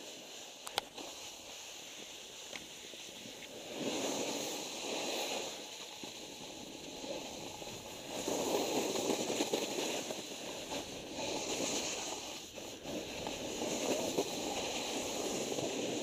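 Snowboard edges scraping and sliding over snow on a run, the scrape swelling several times as the board turns, over a steady rush of wind. There is one sharp click about a second in.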